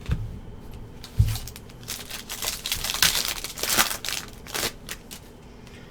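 Trading-card pack wrapper being torn open and crinkled, after two low thumps in the first second or so.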